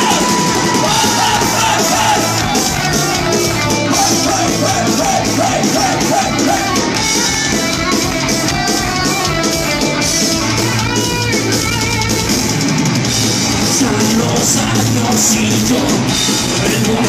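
Heavy metal band playing live, heard from the crowd: electric guitars and bass over a drum kit keeping a steady, driving beat, with a pitched lead line gliding up and down.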